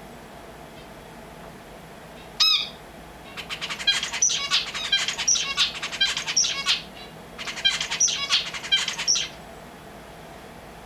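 A finch singing: one loud call about two seconds in, then two phrases of fast, twittering song with high, sweeping notes, separated by a short pause.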